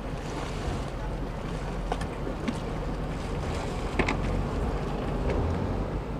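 Steady low rumble of a boat engine idling alongside, with wind and water noise. There are a few light knocks, the clearest about four seconds in as a boathook reaches an inflatable dinghy.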